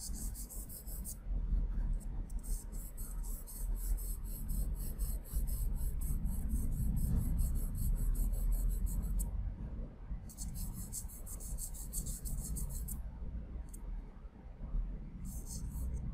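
Charcoal pencil scratching on layout paper in quick back-and-forth shading strokes, in several spells with short pauses between them.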